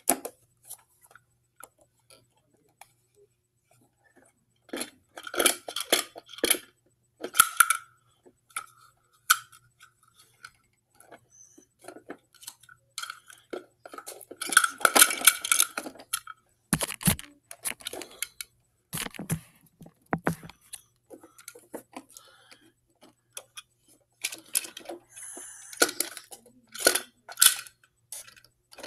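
Hard plastic clicking and clattering as a toy garbage truck and small toy wheelie bins are handled and knocked together. It comes in short spells with quiet pauses between them.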